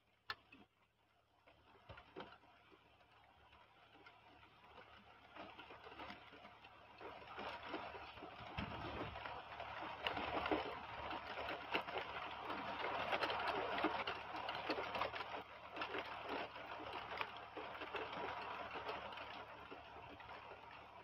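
Heavy rain falling, heard as a dense patter of many small drop ticks. It swells steadily louder over the first half and eases slightly toward the end.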